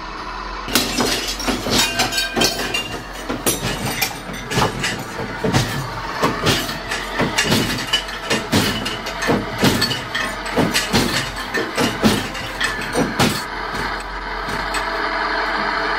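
Wooden wardrobe shaking hard, a rapid, irregular rattling and knocking that stops about three-quarters of the way through, leaving a steady hiss.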